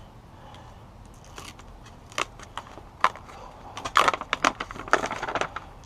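Foil-backed Dynamat Extreme sound-deadening sheet being handled and worked by hand: scattered sharp crinkling clicks and crackles, bunched together near the end.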